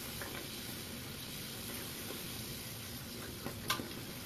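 Bhatura dough deep-frying in hot oil in a kadhai: steady sizzling while a slotted spoon presses it down, with two light clicks near the end.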